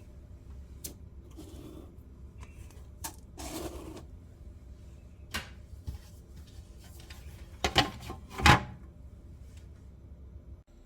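Scattered clicks, knocks and a brief rustle of household items being handled, with two louder clatters about eight seconds in.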